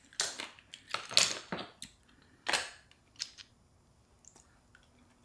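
Shellfish shells being cracked and handled while eating a seafood boil: a handful of sharp clicks and cracks over the first three and a half seconds, then near quiet.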